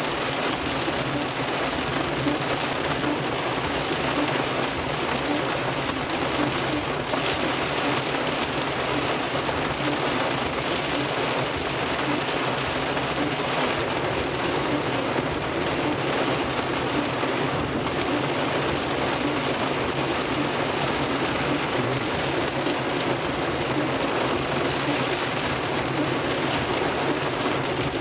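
Heavy rain pouring steadily on a car's windscreen and roof, heard from inside the car as a dense, even hiss.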